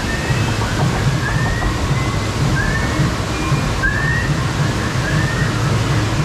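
Water rushing and sloshing around a raft on the Kali River Rapids ride: a steady, loud rush with a low hum under it. Faint short rising chirps repeat over it every second or so.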